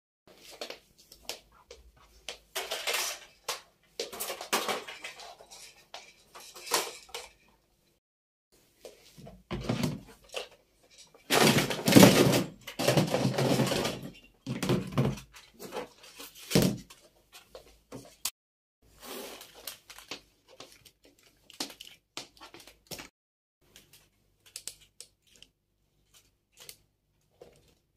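Household cleaning and tidying noises: objects being handled, moved and set down, with irregular knocks and clatters and a louder spell of rubbing noise lasting about three seconds midway.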